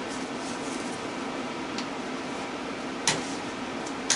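Tools and scrap motor parts being handled, giving a faint click and then two sharp metal clinks about a second apart near the end, over a steady background hum.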